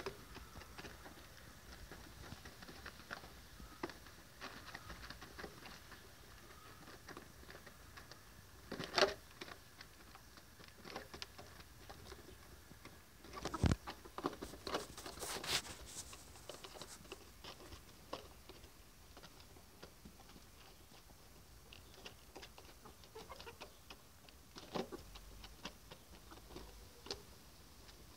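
White Australorp hens pecking at feed, a constant faint patter of small beak taps with a few louder knocks about 9, 14 and 25 seconds in.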